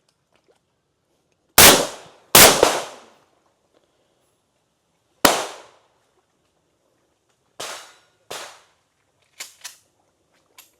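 Rifle set to semi-auto firing three loud single shots, two close together and the third about three seconds later, each with a short echoing tail. Five fainter shots follow near the end.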